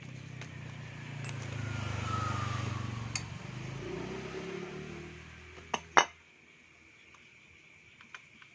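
A vehicle engine drone swells and fades over about five seconds as it passes, then two sharp metallic clinks of engine parts being handled about six seconds in, followed by a few faint ticks.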